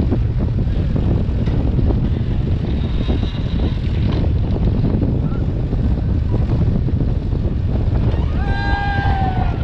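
Steady low rumble of wind buffeting the microphone, mixed with a backhoe's diesel engine working. Near the end a person's voice calls out in one long, bending call.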